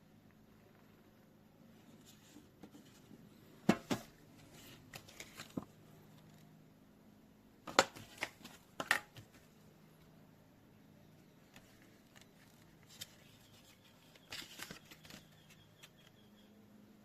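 Handling noises: sharp clicks and knocks in two clusters, about four and eight seconds in, with lighter clicks and rustling between them and again near the end.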